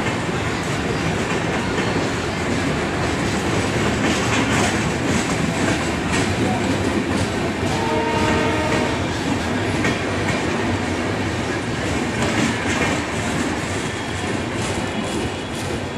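Passenger express train of LHB coaches rolling slowly past, wheels clicking over the rail joints. There is a short pitched tone about halfway through, and the sound eases near the end as the last coach goes by.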